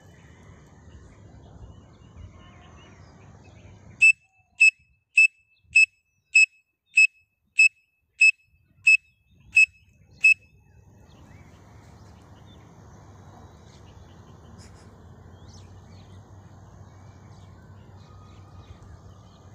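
Pen cap blown as a whistle to imitate a grey francolin (teetar) call: eleven short, sharp, high-pitched whistle notes at an even pace of a little under two a second, starting about four seconds in.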